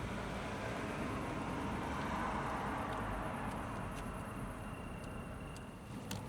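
Steady rushing noise inside a Mercedes-Benz S-Class cabin, easing off somewhat in the second half, with a few faint clicks near the end.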